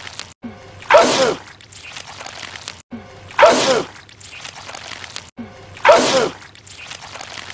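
A man's loud sneeze, repeated three times about two and a half seconds apart as the same short film clip loops. Each sneeze is a sudden burst whose pitch falls, trailing off in a breathy hiss.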